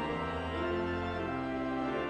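Church organ playing sustained chords over a held bass line, the chords changing every half second or so.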